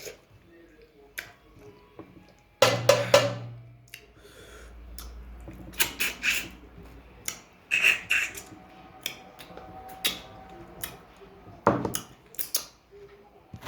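Cutlery clinking and clattering against dishes during eating, in a string of separate sharp knocks, the loudest about three seconds in.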